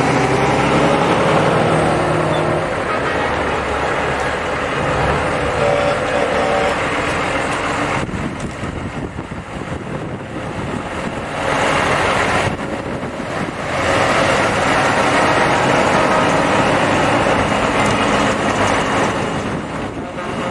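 Heavy trucks driving past in a parade, their diesel engines running, the sound swelling and easing as each one goes by.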